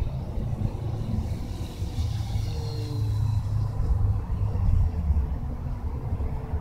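Wind buffeting the microphone in a steady low rumble, with the faint whine of an FMS P-51 RC plane's electric motor and propeller passing overhead, its pitch falling about two to three seconds in.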